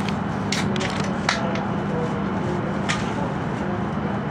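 Steady low hum inside the cabin of an E5 series Shinkansen standing at the platform, with a few short sharp clicks about half a second, a second and a half, and three seconds in.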